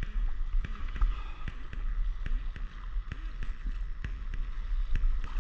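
Water noise around a stand-up paddleboard on calm sea, with a steady low rumble on the microphone and light ticks about two or three times a second.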